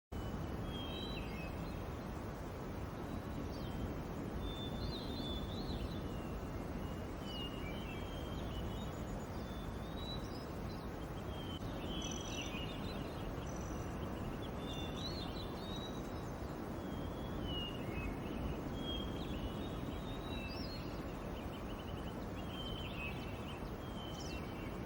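Small birds chirping and twittering over a steady low outdoor noise bed, cutting in out of dead silence.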